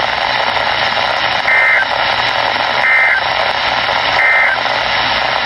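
Three short two-tone digital data bursts, the Emergency Alert System end-of-message code, evenly spaced about a second and a half apart over steady radio static. They mark the end of the tornado warning broadcast.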